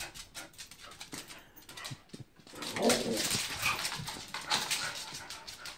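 An excited dog whining a few times, loudest about three seconds in, with quick clicking sounds in between.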